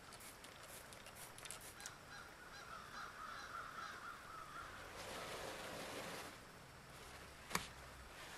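Faint fizzing and crackling of rust-remover foam bubbling on the rusty steel of a butcher's axe head, then the rustle of paper towel being handled, with one sharp click near the end.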